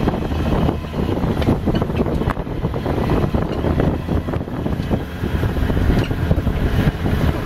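Open-sided game-drive vehicle driving over a bumpy dirt track: engine running, the body rattling and knocking over the ruts, and wind buffeting the microphone.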